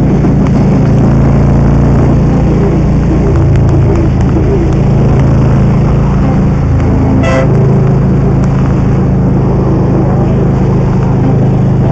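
Motorcycle engine running steadily at road speed with rushing noise on the microphone; a short horn beep sounds about seven seconds in.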